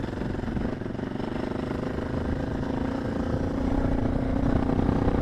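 Suzuki DR650's single-cylinder four-stroke engine pulling under load up a steep climb, held at high revs and growing louder over the last couple of seconds.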